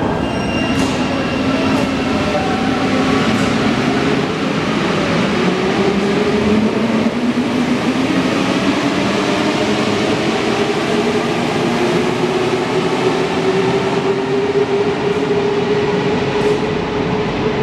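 CAF NS-07 rubber-tyred metro train pulling out of the station and accelerating away. The whine of its traction motors rises slowly in pitch over a steady rolling rumble as it gains speed.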